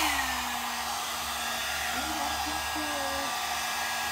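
Two-in-one hot-air brush hair dryer just switched on: its motor tone falls back from its start-up peak in the first half-second, then it runs steadily with a blowing hiss and a hum.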